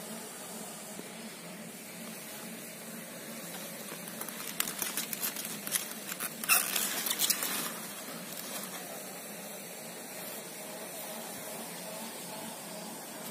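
Cauliflower leaves rustling and crackling as they brush against the microphone, in a burst from about four to eight seconds in, over a steady background hiss.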